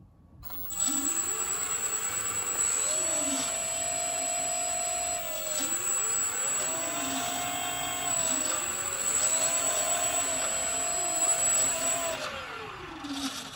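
The boat's two electric propeller motors spinning up and down, their whine rising and falling in pitch and often overlapping, with a steady high-pitched whistle above: a bench test that the new control board still drives them.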